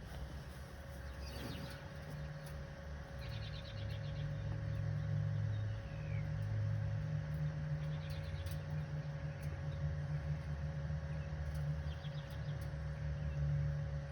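Birds chirping in short trills, about four times, over a steady low rumble.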